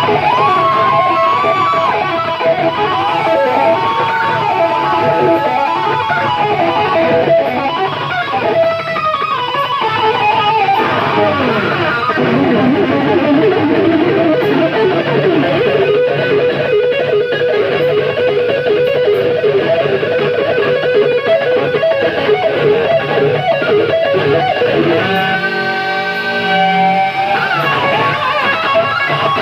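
Live heavy-metal music: a distorted electric guitar playing a lead solo over the band, with bent, wavering held notes.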